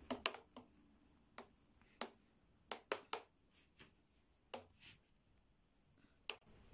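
A metal spoon stirring milk in a glass jug, clinking against the glass about ten times at uneven intervals.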